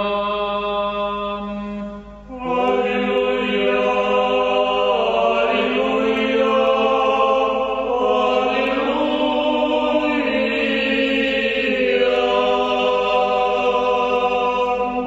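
Orthodox church chant: voices singing the drawn-out Alleluia refrain of an akathist in long held notes that step slowly up and down, with a short break about two seconds in.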